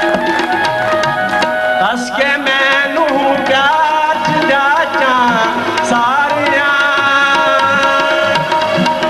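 Live tabla playing under steady held harmonium notes, with a man singing a gliding, ornamented vocal line from about two seconds in until about six and a half seconds in.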